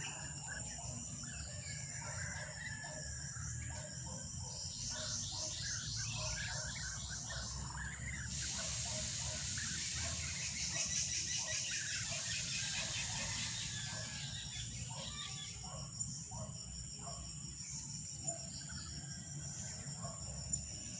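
Rural outdoor ambience of insects and birds: a steady high insect hiss with a pulsing trill that swells louder for several seconds in the middle, over scattered bird chirps. A few brief sharp clicks near the end.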